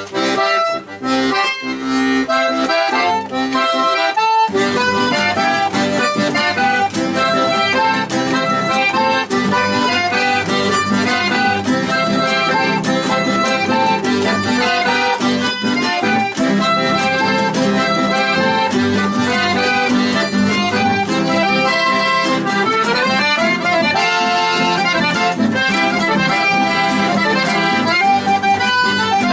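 Chamamé played live, led by an accordion. The opening is thinner, with the accordion mostly alone. About four seconds in, fuller accompaniment with a bass line joins and the piece carries on steadily.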